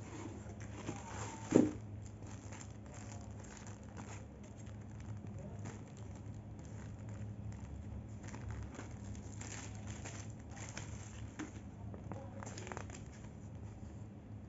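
Clear plastic bag and paper leaflets crinkling and rustling as they are handled, with one sharp knock about a second and a half in, over a steady low hum.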